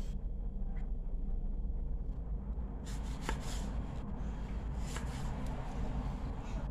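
Kitchen knife slicing small tomatoes on a wooden chopping board: soft cutting and rubbing sounds with a few light knocks of the blade on the board, over a steady low hum.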